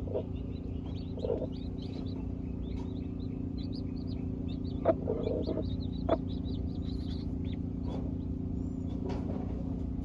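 Baby chicks peeping over and over in short high chirps, with a broody hen's soft low clucks now and then. A steady low hum runs underneath, and two sharp clicks about a second apart fall near the middle.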